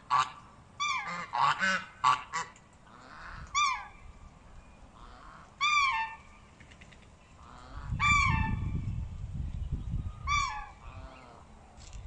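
Hens calling: a quick run of short squawking calls in the first two seconds, then single calls about every two seconds. A low rumble comes in about eight seconds in.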